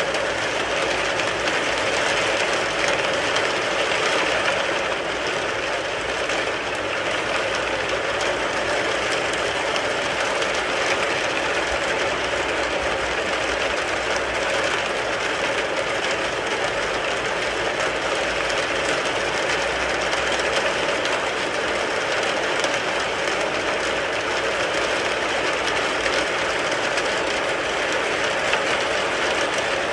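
Rain falling steadily on a car's roof, a dense, even patter of many small drops.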